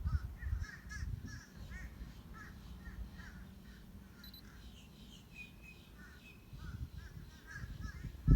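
Birds calling in the background: many short chirps and squawks in quick, irregular succession. A low rumble of handling noise comes early and again near the end.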